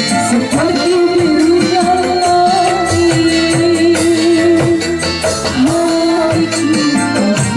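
A woman singing live into a microphone, holding one long note, with an electronic keyboard and kendang hand drums.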